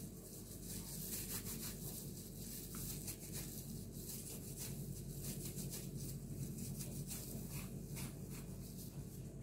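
Disposable plastic gloves rustling and crinkling as hands scoop and shape mashed potato and dip it into breadcrumbs: faint, irregular scratchy rustles over a steady low hum.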